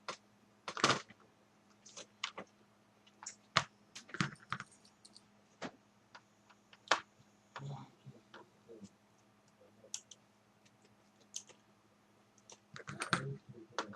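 Irregular plastic clicks and taps from a laptop keyboard being pressed down and worked into its catches, with a denser run of clicks near the end as it seats.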